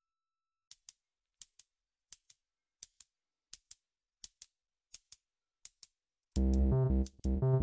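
Electronic background music: a pair of crisp ticks repeating about every three-quarters of a second, then a heavy bass-and-drum beat coming in about six seconds in.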